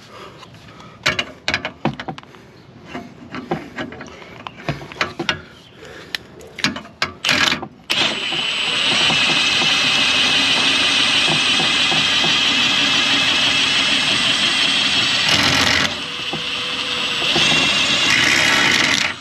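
Several seconds of scattered clicks and clanks of tools, then an impact wrench hammering steadily on a suspension bolt for about eleven seconds, easing briefly near the end.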